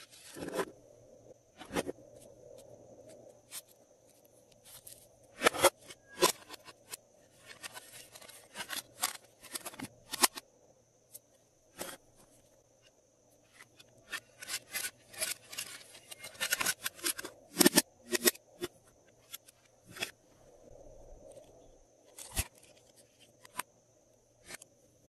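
Hands handling small plastic slime containers and bottles: scattered sharp clicks and taps with short crinkly, rustling scrapes.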